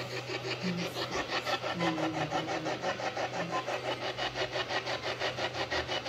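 Ghost-hunting spirit box sweeping through radio stations: an even, rapid pulsing of static several times a second, with brief snatches of radio tone between the pulses.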